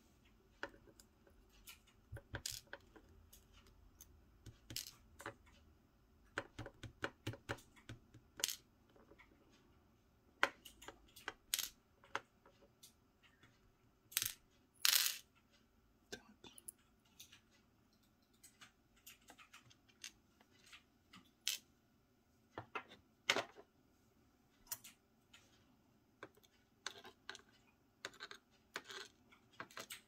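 Small metal lock parts (pins, drivers, springs and sliders of an M&C Matrix lock) clicking and clinking as the lock is taken apart, in scattered sharp taps. The loudest clinks come about fourteen and fifteen seconds in, as the sliders are dropped out.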